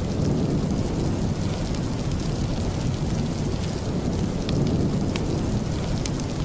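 Steady, low, rushing rain ambience, with a few sharp crackles from a wood fire in a fireplace scattered through the second half.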